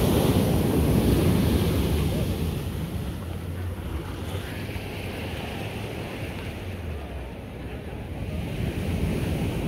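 Sea surf washing in, with wind buffeting the microphone. It is loudest in the first couple of seconds, eases off, and builds again near the end.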